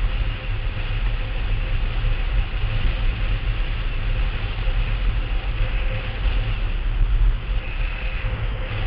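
Blokart rolling fast over a hard dry lakebed: a steady rumble from its wheels, mixed with wind buffeting the microphone. A faint steady hum runs under the noise.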